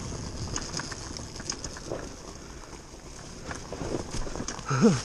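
TM Racing MX250 dirt bike coasting downhill with its engine off: knobby tyres rolling over dirt and dry leaf litter, with a steady rush and scattered clicks and knocks from the bike going over bumps and stones. Near the end a brief loud sound rises and falls in pitch.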